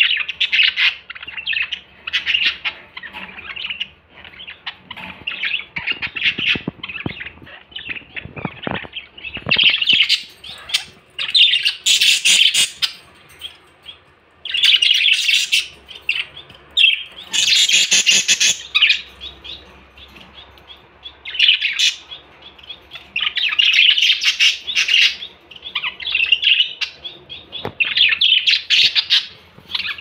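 Several budgerigars chattering and chirping in quick bursts, with a few louder, harsher squawks near the middle.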